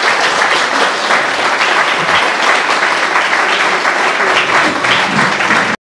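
Audience applauding steadily, a dense mass of hand claps, which cuts off suddenly near the end.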